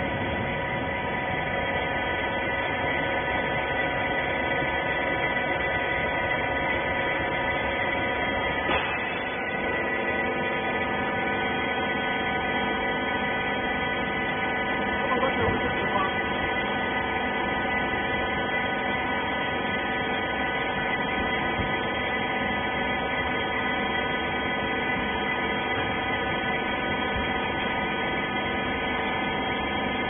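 Hydraulic pump and motor of a horizontal wiper-rag bagging baler running with a steady hum. A brief knock comes about nine seconds in, and a couple of small clunks follow around fifteen seconds.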